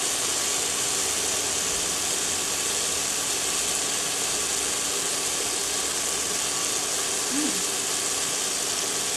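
Chicken of the woods mushroom strips sizzling steadily in olive oil in a frying pan.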